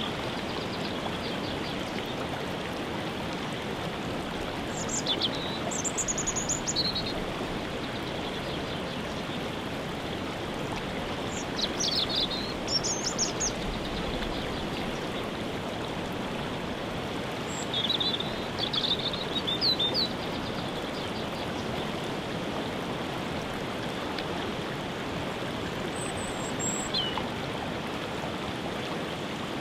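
Steady rush of falling water from a waterfall, with short bursts of songbird song and chirps over it about four times.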